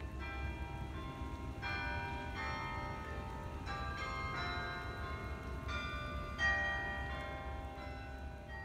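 Carillon bells in Sather Tower playing a tune: notes struck about every half second, each ringing on into the next, with one louder strike near the end. A steady low rumble runs underneath.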